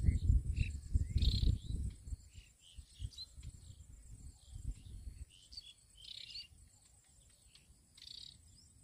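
Birds chirping in short, scattered calls, over a steady high insect buzz. A low rumbling noise in the first couple of seconds dies away by the middle.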